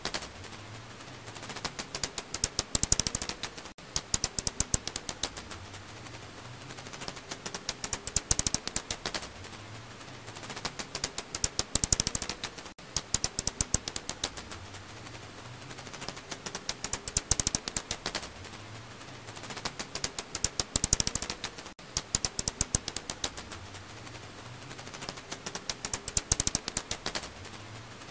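Black house bat (Alashanian pipistrelle, Hypsugo alaschanicus) echolocation calls made audible as rapid trains of dry clicks. The clicks come in louder, denser bursts every few seconds, with sparser clicking over a low hiss in between.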